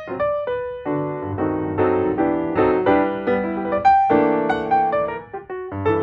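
Background piano music: a solo piano playing melody notes over chords at an easy pace.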